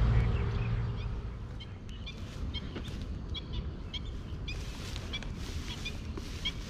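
Birds chirping in short, irregular calls, over a steady low background rumble.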